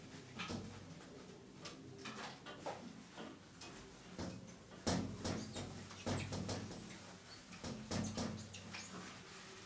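Whiteboard being wiped clean with a cloth eraser: irregular rubbing strokes of varying strength, the heaviest about halfway through and again near the end.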